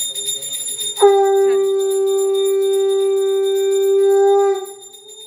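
Conch shell (shankha) blown in one long, steady note that starts about a second in and lasts about three and a half seconds before it wavers and breaks off. Under it a hand bell rings continuously, as in puja worship.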